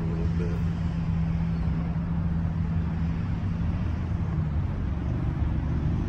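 Car engine idling: a steady low hum.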